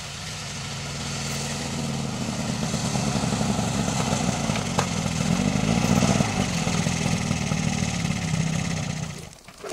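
Snowmobile engine running as the machine drives closer across the ice, growing louder over the first six seconds, then cutting off suddenly near the end.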